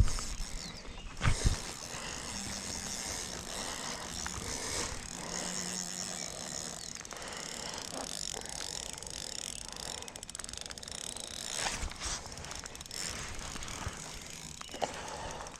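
Fishing reel being cranked, a fast clicking of the reel's gears, with a couple of sharp knocks about a second and a half in.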